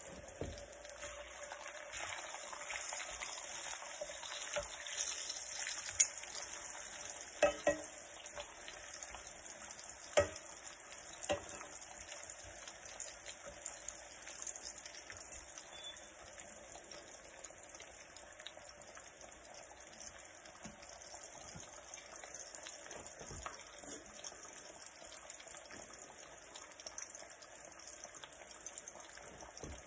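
Corn tortillas frying in a skillet, a steady sizzle, with several sharp clicks in the first half as a fork and spatula tap the pan turning them.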